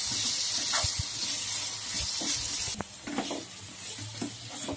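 Raw potato cubes sizzling in hot oil in a frying pan while a spatula stirs them, scraping and knocking against the pan. The sizzle drops sharply a little under three seconds in.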